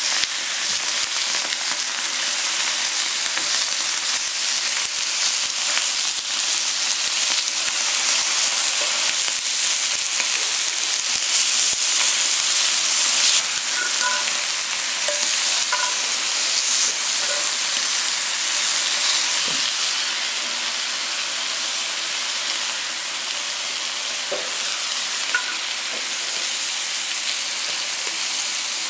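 Marbled Hanwoo beef slices sizzling steadily on a hot grill pan, with occasional faint clicks of tongs against the pan.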